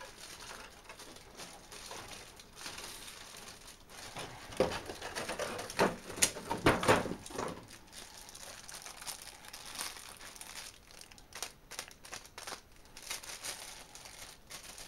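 Crinkly packaging being handled and unwrapped, with irregular crackles that are loudest from about four and a half to seven and a half seconds in.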